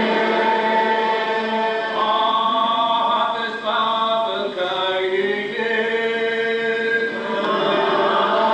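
A congregation singing a Gaelic psalm unaccompanied, led by a precentor. Many voices hold long, slow notes and slide between them, each voice ornamenting the line a little differently.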